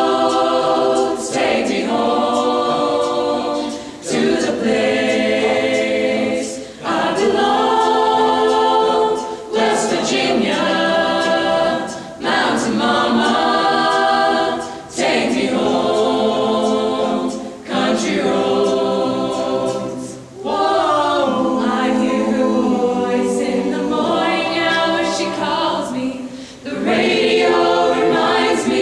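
A mixed chorus of teenage voices singing a cappella in close harmony. It sings in sustained phrases of a few seconds each, with brief dips for breaths between them.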